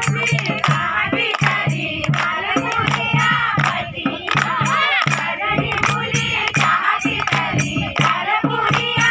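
Group of women singing a Kumaoni Holi song in chorus, keeping time with rhythmic hand-clapping over a steady low beat.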